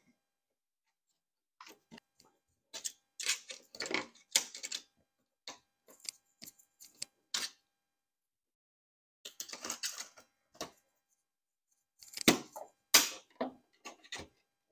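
Irregular clusters of short clicks, taps and scrapes: a hook tool working along the edge of a Corvette's rear window trim molding against the glass, prying for the hidden retaining clips. The sharpest clicks come near the end.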